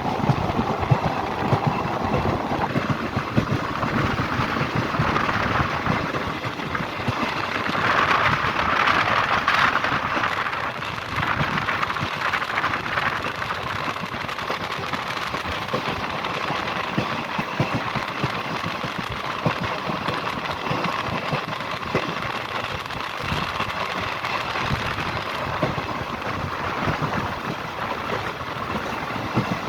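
Train running at speed in the rain: a steady rush of wind and rain noise with a rapid clatter of wheels on the track, swelling louder about eight seconds in.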